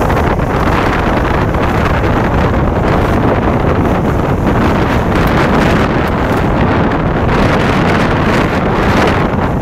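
Wind buffeting the microphone on a speedboat running at speed while towing a waterskier, over the rush of the boat and its wake. The noise comes up sharply at the very start and then stays loud and steady.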